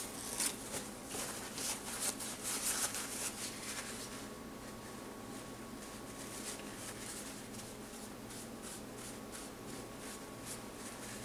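Paper towel rustling and crinkling as it is handled and wiped over the turned wooden pot, busiest in the first few seconds and sparser after, over a faint steady hum.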